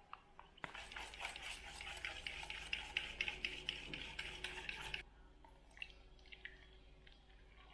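Milk being stirred briskly with a metal utensil in a stainless steel bowl, a fast run of clinking strokes against the bowl to dissolve milk powder. It starts about a second in and stops at about five seconds, leaving only a few faint clicks.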